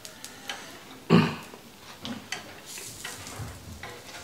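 Wooden chopsticks clicking and tapping as they pick at pan-fried dumplings on a griddle, with one louder thump about a second in. A faint sizzle creeps in near the end.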